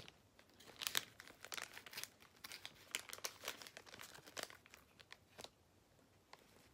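Thin plastic wrapper of a packaged folded pizza crinkling as it is pulled open by hand, in a run of quick crackles that stops about five and a half seconds in.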